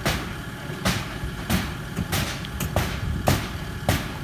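A series of sharp knocks, about two a second at uneven spacing, over a steady low rumble.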